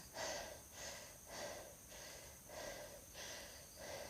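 A woman breathing quickly and heavily, a faint puff of breath about every half second.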